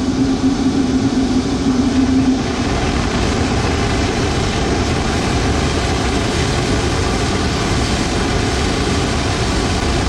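Blower-fed waste-oil burner firing at full flame: a steady, loud rush of burning oil and forced air. A low steady hum rides over it for the first two seconds or so, then fades out.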